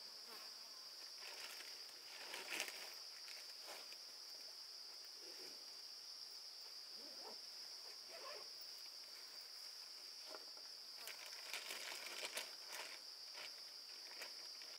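Insects chirring in a steady, unbroken high drone. Scattered light clicks and rustles sound over it, loudest about two and a half seconds in and in a cluster around eleven to twelve seconds.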